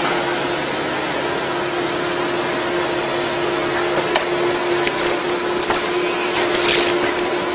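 Tree-cutting machine's motor running steadily at a constant pitch, with a few sharp cracks of wood in the second half.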